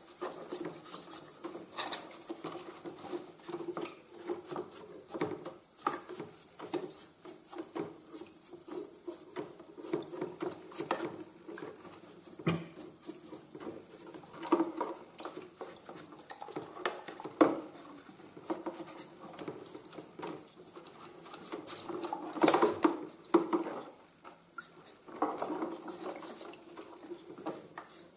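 Paintbrush scrubbing limescale off a plastic toilet-cistern valve part in a tub of hydrochloric acid: irregular bristle scratching and small wet splashes, with now and then a louder knock of the plastic part against the tub.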